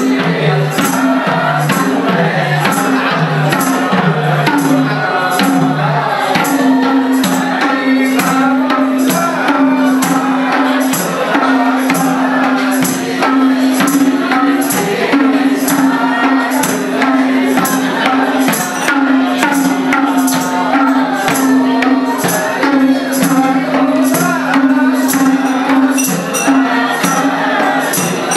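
Sorathi folk dance music: a madal hand drum with jingling metal percussion keeping a steady beat, under men's voices singing the tune with long held notes.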